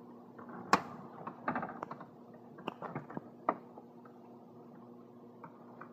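Scattered clicks and knocks of the gear selector and its plastic console trim being handled and shifted about, the sharpest knock about a second in, over a faint steady hum.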